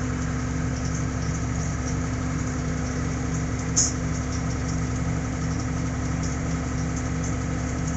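Tractor engine running steadily, heard from inside the cab, with a brief high click about four seconds in.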